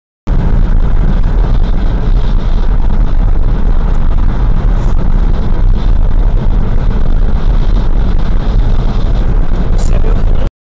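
Steady road noise inside a car driving at about 80 km/h: a low rumble of tyres and wind. It starts abruptly just after the start and cuts off sharply just before the end.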